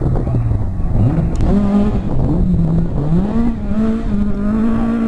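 Ford Escort rally car's engine revving hard along the stage. Its pitch dips and climbs again twice in the first three seconds as it shifts gear, then holds steady at high revs.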